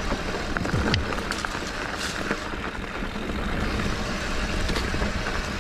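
Mountain bike riding fast down a dry dirt trail: a steady rush of wind over the microphone, with tyres crunching over loose ground and the bike rattling in many small clicks.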